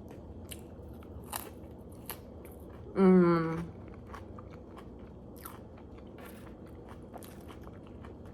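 Close-up chewing and biting sounds of someone eating burger and fries, with scattered sharp wet clicks. About three seconds in comes one short voiced hum.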